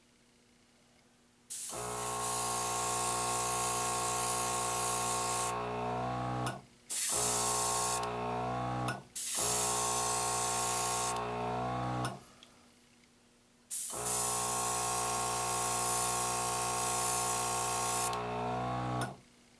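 Airbrush spraying the final coat of paint in four bursts, with the small compressor's motor humming under each one and dropping in pitch as each burst ends.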